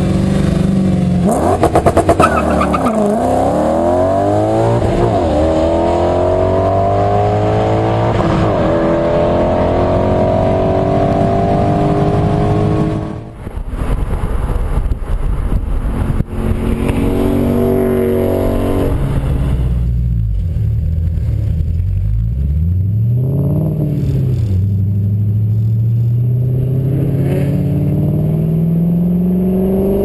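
Audi B8 S5's 4.2-litre V8 with test pipes in place of the catalytic converters and a 2.5-inch stainless cat-back exhaust. It holds a steady note at the drag strip start line, then launches hard just over a second in and accelerates away through the gears, its pitch sweeping up and dropping back. After a cut, the same exhaust is heard on the road: it rises and falls in pitch as the car passes, then climbs steadily as it accelerates again.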